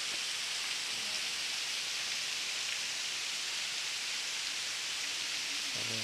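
Waterfall splashing into its plunge pool, a steady even hiss of falling water. The flow is light, more like a shower than a heavy fall.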